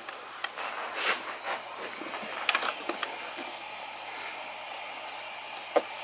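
Steady hiss of a 3D printer's cooling fans running, with a few short clicks and knocks scattered over it.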